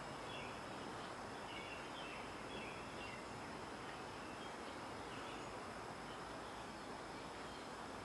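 Faint outdoor background: a steady hiss with a few soft, high, short chirps scattered through it. No wrench or metal noise stands out.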